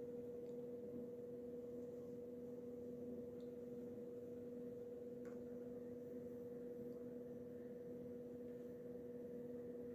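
Faint steady hum on two low pitches, unchanging, with a few faint clicks.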